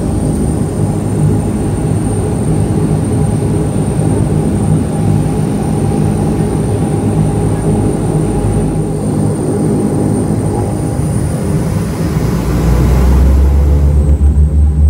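Dash 8-200 twin turboprop engines and propellers running, a steady drone with a thin high whine over it. About twelve seconds in, a deeper rumble swells and the sound grows louder as the engine power changes.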